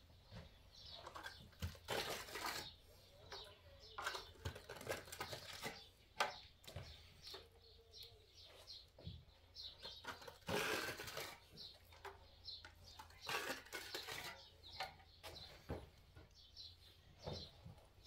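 Steel plastering trowel scraping and tapping as plaster is spread onto a ceiling, in short irregular strokes, with one longer, louder scrape about ten seconds in.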